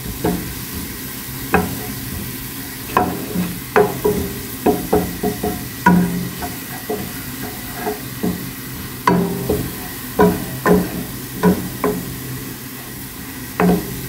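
Wooden spoon stirring diced onions frying in oil in a stainless steel pot. Irregular scrapes and knocks of the spoon against the pan sound over a low sizzle, with the onions fried golden.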